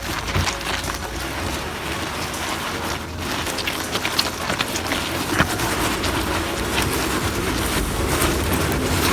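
Kei van driving slowly over riverbed gravel on Yokohama Geolandar X-AT all-terrain tyres, with a steady crunch of stones and many small pops and ticks as they are pressed and flicked up, growing a little louder near the end.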